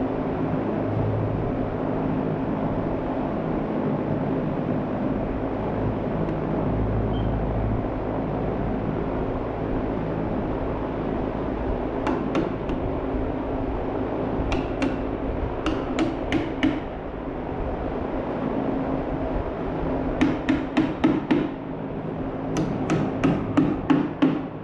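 Claw hammer nailing a blue plastic electrical box onto a wooden wall stud. A few single strikes come about halfway through, then quick runs of blows near the end, over a steady background hum.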